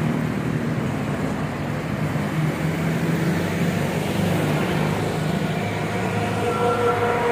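Traffic on a highway: the steady drone of a large vehicle's engine passing close by, with a higher-pitched whine coming in over the last couple of seconds.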